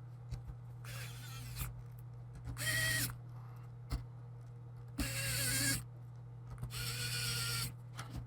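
Small electric screwdriver running in four short bursts, each with a whine, driving screws into a laptop's hinge and lid.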